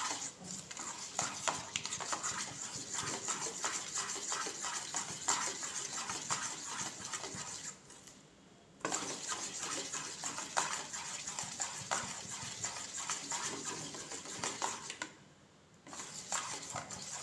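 A utensil scraping and clicking against a stainless steel bowl as a thick melted chocolate and milk mixture is stirred, stopping briefly about halfway through and again near the end.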